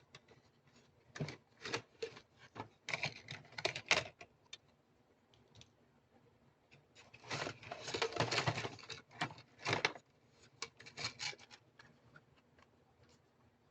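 Small plastic toy kitchen pieces and their packaging being handled: irregular clicks, taps and light clatter, with two longer spells of dense crackling rustle.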